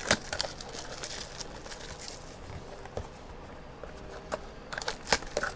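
Trading card box and its plastic wrapping being handled on a table: light rustling with a few scattered taps and knocks.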